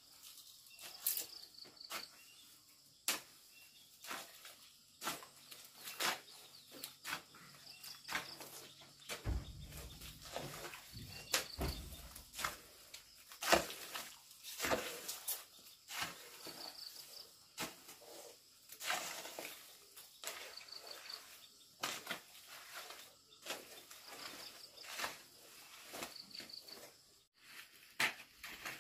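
Irregular scrapes and taps of work going on, with an insect, cricket-like, giving a short chirping trill every few seconds.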